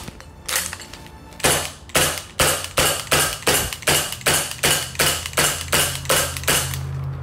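Red Wolf Airsoft Nighthawk Covert Ops, a suppressed CO2 blowback 1911-style airsoft pistol, firing a rapid, even string of sharp shots at about two and a half a second, each shot kicking the slide. One lone shot comes first, then the string starts about a second and a half in.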